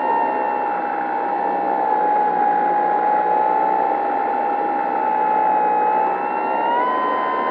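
Whine of a Dynam 3720-650kV brushless electric motor and spinning propeller, heard from a camera on board the RC plane, over a steady rushing noise. The pitch sags slightly, then rises a little near the end.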